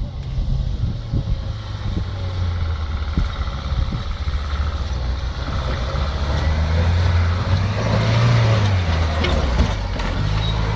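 Off-road Jeep's engine running under load, a steady low drone that grows somewhat louder in the second half, with a few sharp knocks in the first second or so.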